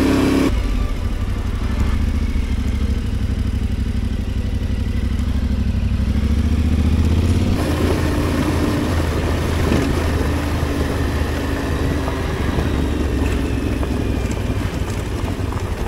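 Adventure motorcycle engine running as the bike is ridden off-road, a steady low drone that eases off about half a second in and picks up again around seven and a half seconds in.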